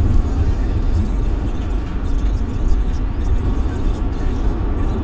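Road and engine noise of a car being driven, a steady low rumble.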